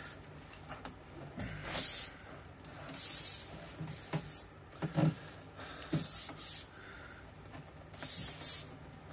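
Hands working a black sheet-metal split stovepipe, pressing it down to snap the slot into its seam channel: four short hissing rushes with a few light clicks and knocks in between.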